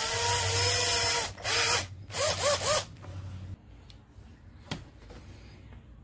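Cordless DeWalt drill running in trigger bursts, drilling into the rivet on the base of a die-cast toy car: one run of about a second that spins up and winds down, then a few quick short pulses. A single sharp click follows near the end.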